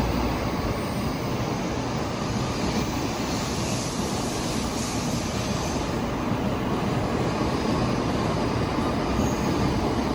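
A train at a station platform, giving a steady, even running noise with no distinct clicks or wheel beats.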